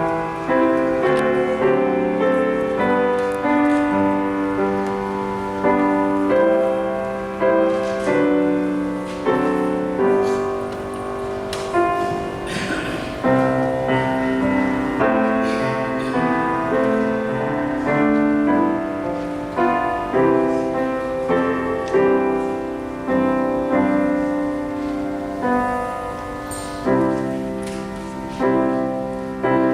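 Piano playing a slow, classical-style piece: chords and melody notes struck every second or two and left to fade.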